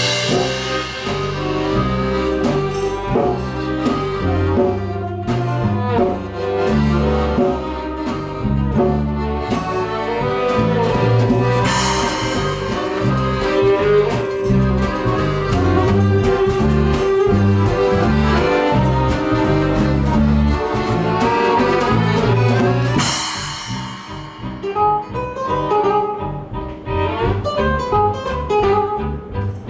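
Live band playing an instrumental passage with drums and a moving bass line, cymbal crashes near the start, about twelve seconds in and about twenty-three seconds in. After the last crash the music thins out and gets quieter.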